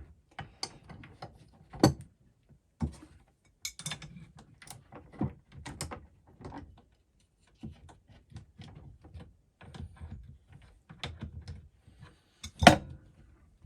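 Adjustable spanners clicking and clinking against plumbing fittings as a water hose is undone under a sink: irregular small metallic taps and knocks, with a sharper knock about two seconds in and another near the end.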